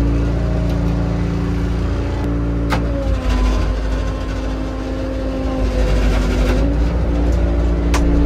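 Loaded dump truck's diesel engine running under way, carrying about 16 tons of gravel. Its pitch drops a little about two seconds in and rises again near the end, over a thin whine, with two sharp clicks.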